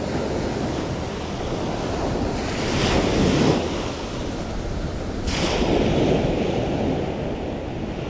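Sea surf washing in, with wind buffeting the microphone. Two louder wave surges come about three seconds in and again just after five seconds.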